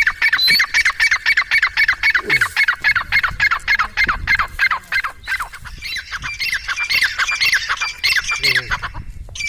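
A bird calling close by: a fast, steady run of sharp squawking notes, each sliding downward, about five a second, that stops shortly before the end.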